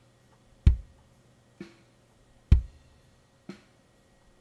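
Recorded kick drum heard through the inside-kick-drum mic alone: a deep thump about every two seconds, with fainter, brighter hits in between.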